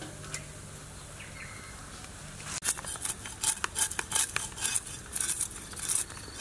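Broad knife blade scraping the scales off a large whole sea fish in quick, crisp strokes, about three a second, starting about two and a half seconds in after a quieter stretch.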